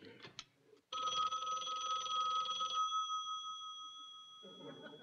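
Desk telephone bell ringing once: a sudden steady ring about a second in that holds for about two seconds, then fades out.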